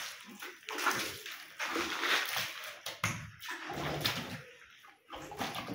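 Wet plaster of Paris slurry and sisal fibre being pressed and spread by hand in a casting mould: irregular wet slaps and sloshes.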